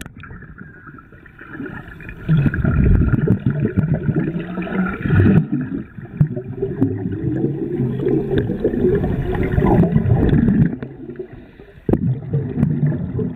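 Scuba regulator exhaust bubbles gurgling as a diver breathes out, heard underwater: long spells of bubbling starting about two seconds in, with brief lulls near the middle and shortly before the end.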